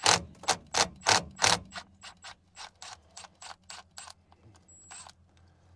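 Ratchet wrench clicking as a differential cover bolt is backed out: a run of sharp clicks, loud at first, then fainter and quicker, with a last click near the end.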